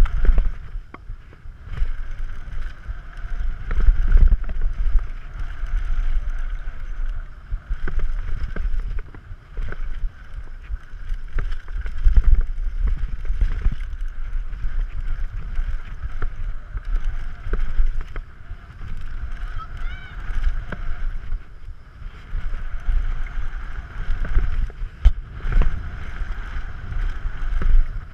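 Wind buffeting the microphone of a camera mounted on a mountain bike at speed, with tyre noise on packed dirt and knocks and rattles from the bike over bumps and landings.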